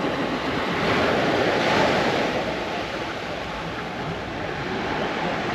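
Small, gentle sea waves washing onto the beach, swelling a little louder about a second in, with wind on the microphone.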